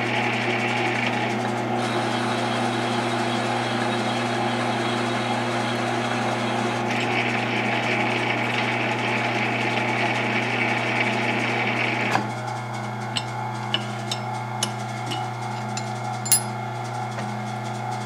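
South Bend lathe running under power with a steady hum while a carbide threading insert cuts a 12-threads-per-inch thread in steel, a rough scraping cutting noise over the hum. About twelve seconds in the cutting noise stops suddenly, leaving the lathe running, with a few light clicks.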